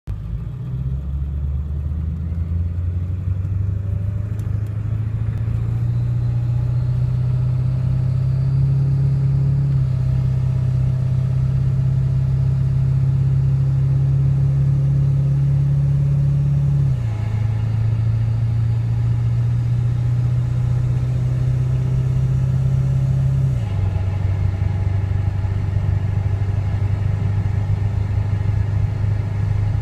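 Ford 7.3 Powerstroke V8 turbodiesel running under way with a steady low drone. Its pitch climbs slowly over the first several seconds, then drops in two sudden steps later on. It is recorded to show a turbo flutter and surge that the owner reports at 40 and 50 mph.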